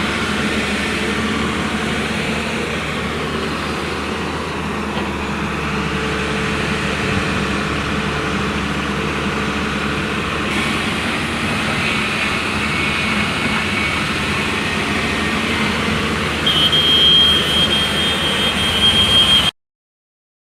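Heavy diesel machinery engine running steadily, with a high, steady whine joining about three seconds before the end. The sound then cuts off abruptly.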